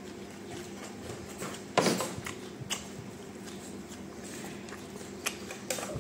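A person chewing close to the microphone, with scattered wet clicks and smacks from the mouth. One louder, noisy crunch comes about two seconds in, over a steady low hum.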